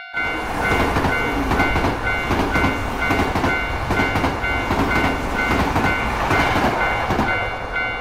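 Railroad crossing bell ringing its repeated kan-kan, about two strikes a second, while a train passes with a dense rumble and wheel clatter. The train noise fades near the end, leaving the bell.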